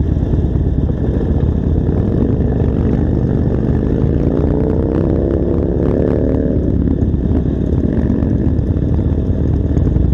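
Harley-Davidson Sportster's air-cooled V-twin engine running at low speed, with a rising note from about three seconds in as the revs pick up, easing off near seven seconds.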